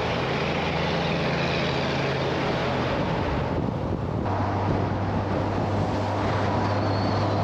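A vehicle driving: a steady engine hum under road and wind noise, its low hum changing in pitch about four seconds in.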